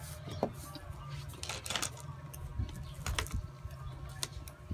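Small plastic building bricks clicking and clattering as they are handled and picked from a loose pile, a few scattered clicks over a steady low hum.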